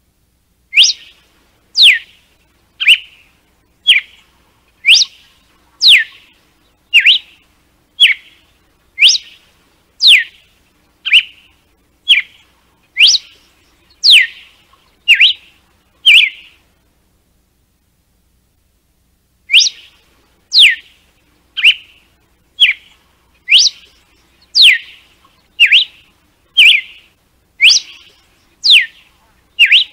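Red-cowled cardinal (galo-de-campina) singing its 'açoite' (whip) song: a series of loud, sharp whistled notes about one a second, many sweeping steeply down in pitch, broken by a pause of about three seconds midway.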